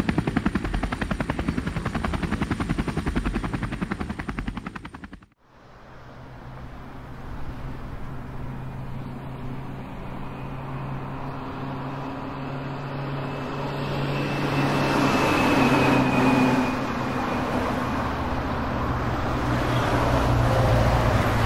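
Fast, even chopping of a helicopter rotor overhead for about five seconds, cut off abruptly. Then steady city traffic noise with a low engine hum, swelling gradually and then holding.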